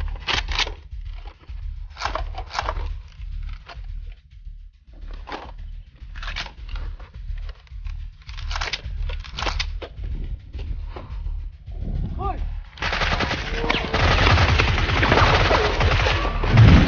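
Gunfire sound effects: scattered short bursts of shots, then a long stretch of rapid automatic fire near the end, over a steady low rumble.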